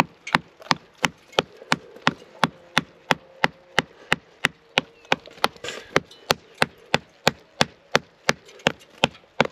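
A hammer tapping on cement plaster over a granite lintel to knock it loose. There are quick, even blows at about three a second, kept up steadily.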